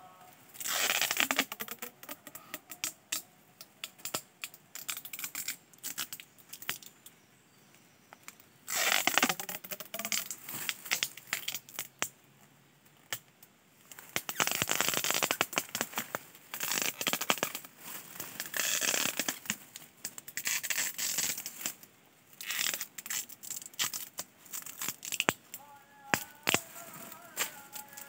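Clear plastic wrap film being pulled off its roll and stretched tightly around a fresh chestnut graft, crackling and crinkling in repeated spells of a second or two with sharp ticks between. The wrapping seals the graft so that no air gets in.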